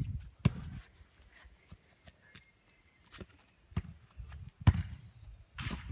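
A football being touched and kicked during freestyle tricks: a handful of scattered thuds, the loudest a little under five seconds in.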